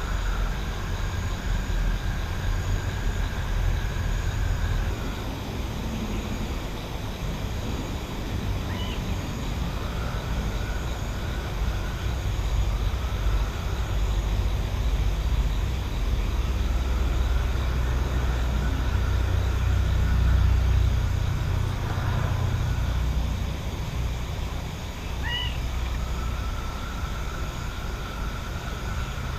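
Countryside night ambience: a continuous low rumble that swells towards the middle, with a thin, steady high drone that comes and goes, and two short rising chirps.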